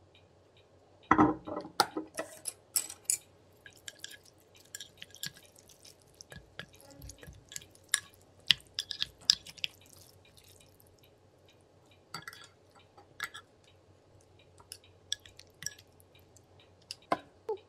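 Wooden chopsticks and a wooden spoon clicking and scraping against a ceramic baking dish while mixing saucy ramen noodles and rice cakes, with wet squishes from the noodles. A louder knock comes about a second in, and the clicking pauses briefly past the middle before starting again.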